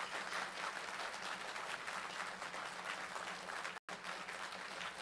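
Audience applauding, fairly faint, over a low steady hum; the sound cuts out for an instant about four seconds in.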